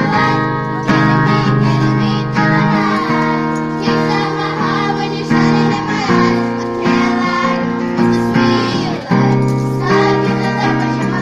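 A group of children singing a song together, accompanied by a guitar.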